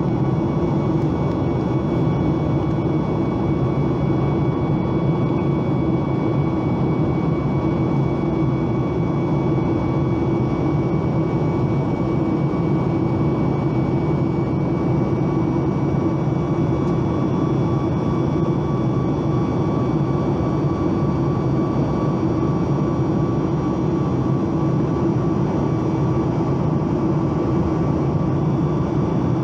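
Cabin noise of a Boeing 737 MAX 8 in flight, heard from a window seat beside the wing: the steady drone and rush of its CFM LEAP-1B engine and the airflow, with a few thin steady whine tones above it.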